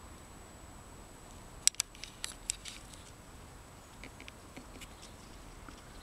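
Handling noise from a handheld camera moving through tall grass: stems brushing close to the microphone. A quick cluster of sharp clicks comes about two seconds in, then fainter scattered ticks.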